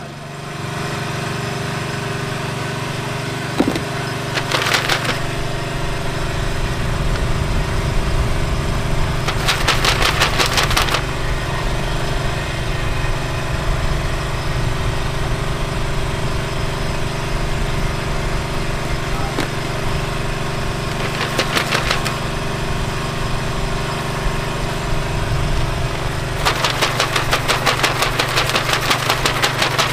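A motor running steadily with a constant hum, broken four times by bursts of rapid ticking, the last and longest near the end.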